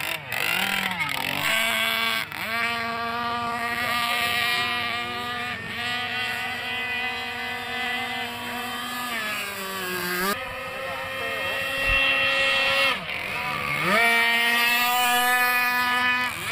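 Radio-controlled speedboat's small engine running at high, steady revs as the boat races across the water. The pitch dips and climbs back several times as the throttle is eased and reapplied, most clearly about ten seconds in and again around thirteen seconds.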